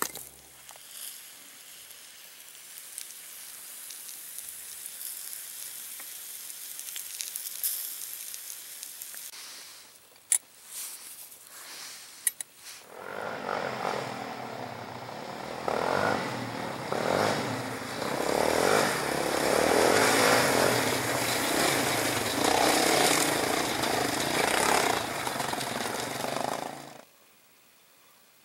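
Small off-road vehicle engine running, growing louder over several seconds as it climbs toward the microphone, then cut off abruptly near the end. Before it there is a stretch of faint hiss with a couple of sharp clicks.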